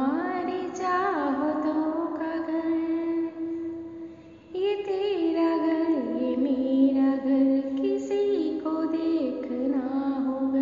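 A woman's voice singing long, held notes that step and glide slowly between pitches, with a brief break a little past four seconds.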